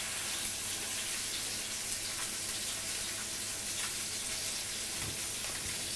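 Sea bream fillets sizzling in a little olive oil in a frying pan on a gas burner, just turned onto their flesh side: a steady hiss with faint crackles.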